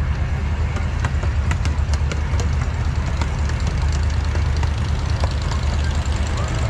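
Miniature ride-on train running along its track, heard from one of its open cars: a steady low rumble with scattered light clicks.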